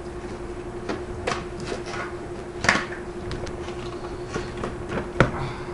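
Cardboard graphics-card box being opened and handled by hand: scattered scrapes and light knocks, with two sharper knocks, one about halfway through and one near the end, over a faint steady hum.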